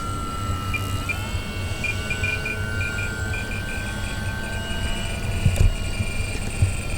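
Electric motor and pusher propeller of a Hobby King Sky Eye R/C plane in flight, a steady high whine whose pitch sags slowly and then rises about a second in with the throttle. A rapid pulsing chirp sits alongside it from about two seconds in.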